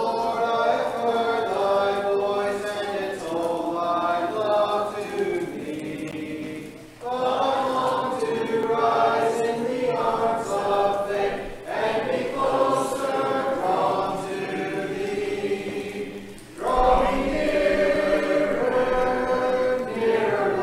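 Church congregation singing a hymn a cappella, many voices without instruments, in long sustained phrases with short breaks between them.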